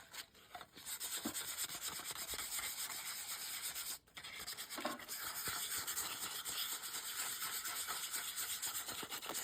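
Hand sanding of a small 1/24-scale RC crawler's Chevy body in small circular strokes, a continuous fast scratchy rubbing that breaks off briefly about four seconds in.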